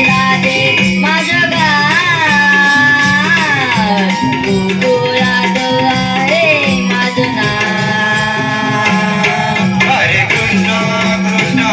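Live naman folk music: a child singing a Krishna-leela song into a microphone, melodic lines with held and gliding notes, over a steady drum beat and jingling hand percussion.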